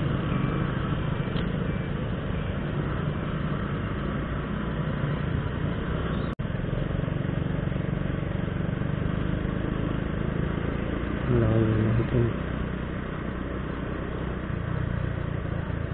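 Motorcycle engine running steadily with road and wind noise, picked up by an action camera's microphone. The sound cuts out for an instant about six seconds in, and a louder pitched tone lasting about a second rises over the ride about eleven seconds in.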